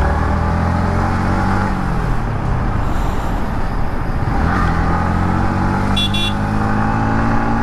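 Yamaha MT-15's 155 cc single-cylinder engine through its stock exhaust, ridden in traffic: the engine note eases off over the first two seconds, then rises again from about four seconds in as the bike pulls away. A vehicle horn toots briefly about six seconds in.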